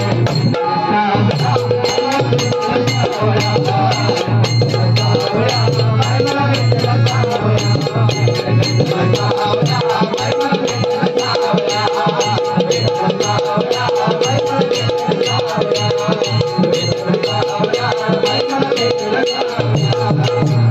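Marathi devotional song: a man singing over a harmonium, with percussion keeping a fast steady beat.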